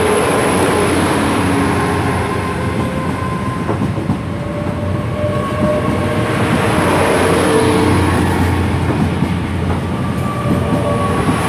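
A nine-car Great Western Railway Class 800 bi-mode train pulling out past the platform on its underfloor diesel engines: a steady engine hum with its wheels rolling over the rails.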